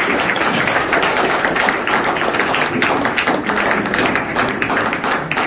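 A roomful of people applauding: many fast, overlapping hand claps.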